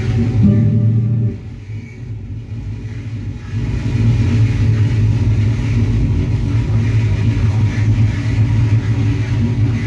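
Post-industrial dark ambient electronic music performed live: a loud, steady low drone from electronic gear that dips away about a second in and swells back a few seconds later.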